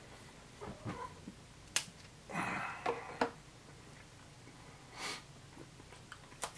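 A few sharp crisp snaps and short crunches from MRE crackers being broken and eaten, the loudest crunch a little after two seconds in.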